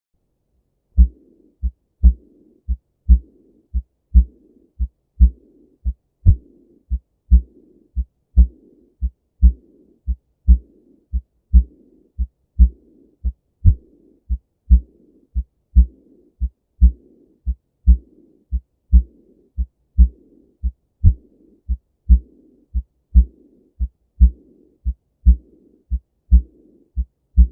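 Heart sounds of aortic regurgitation: a regular beat of about one a second, each beat a pair of low thuds, with a high-pitched early diastolic murmur in the gap after them.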